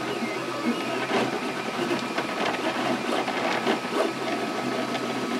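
3D printer at work: its stepper motors whir in short, irregular moves of the print head over a steady hum.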